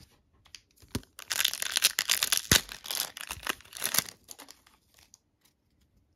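A foil Pokémon booster pack wrapper crinkling and tearing as it is opened, a dense burst of crinkles from about a second in until about four seconds in, with a couple of sharp taps. Fainter rustling of the cards follows.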